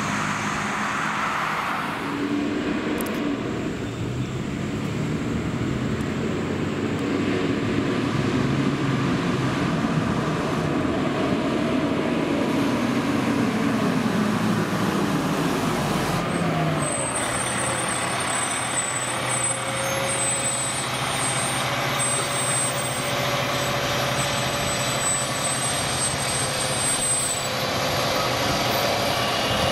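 Fire engines driving past, their diesel engines running loud. The engine note climbs, then drops off about sixteen seconds in, and a steadier engine sound follows as the next truck pulls through.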